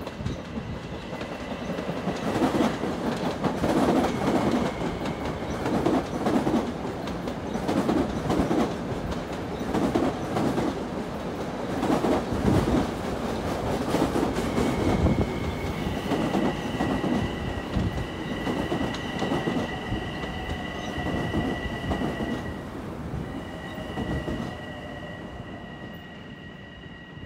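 Long Island Rail Road electric multiple-unit train passing through the station, its wheels clattering in a loose rhythm over the rail joints. About halfway through, a steady high squeal joins in. The sound fades as the last cars go by near the end.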